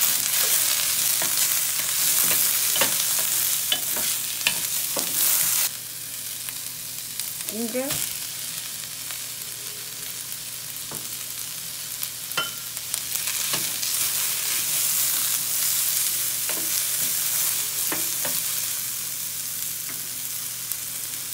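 Sliced onion and garlic sizzling in hot oil in a stainless steel pan. A wooden spatula stirs them, knocking and scraping against the pan now and then. The sizzle is loudest for the first few seconds, then drops suddenly about six seconds in and goes on more softly.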